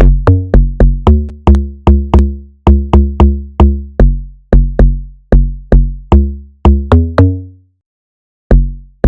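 Amapiano-style electronic bass drum samples played as a syncopated line of short pitched hits, each a sharp click followed by a decaying low boom at changing pitches. The pattern stops about seven and a half seconds in, and one last hit sounds near the end.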